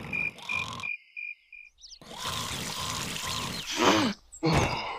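Cartoon larva character's vocal sounds: a rasping breath, then two grunts falling in pitch near the end. A pulsing high beep stops after about two seconds.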